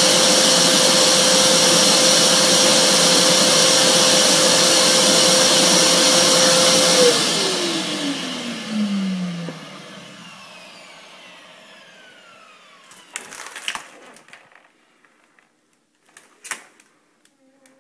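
Vacuum cleaner running steadily while sucking the air out of a vacuum storage bag holding a duvet. It is switched off about seven seconds in, and its motor whine falls in pitch as it winds down. After that come a few short crinkles and knocks of the plastic bag being handled.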